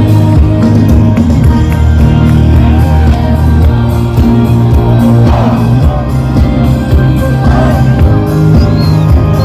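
Live band music played loud through a concert PA, with a heavy bass. Crowd members shout and cheer over it a few times in the second half.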